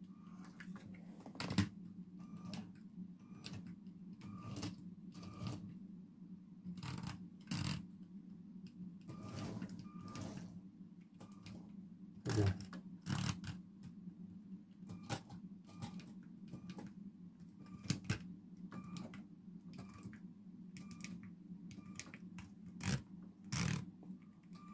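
Plastic buttons on Lego Powered Up remote controls clicking as they are pressed, irregularly and many times, over a faint steady hum.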